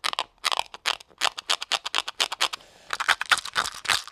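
Fingernails picking and scratching at the plastic shrink wrap on a small metal Altoids Smalls mint tin: a quick, irregular run of crisp clicks and crinkles.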